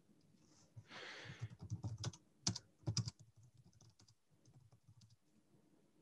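Faint typing on a computer keyboard: an irregular run of key clicks that stops about three seconds in.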